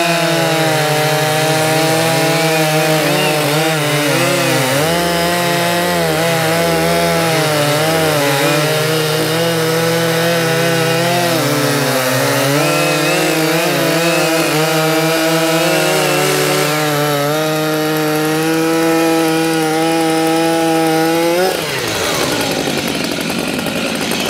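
Two Stihl MS 881 two-stroke chainsaws at full throttle, cutting through a thick log together, their engine pitch dipping and recovering under load. About 22 seconds in, one saw finishes its cut and drops off, and the other keeps cutting.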